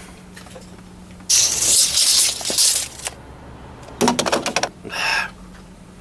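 A man's long breathy exhale, a sigh, starting about a second in and lasting under two seconds, then a few short breathy mouth sounds near the end.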